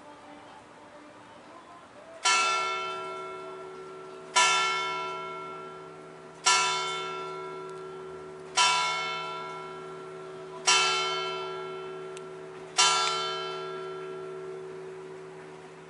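Church bell of the Igreja de Nossa Senhora do Outeiro tolling: one bell struck six times on the same note, slowly and evenly about two seconds apart, each strike ringing on and fading into the next, with the hum still sounding after the last.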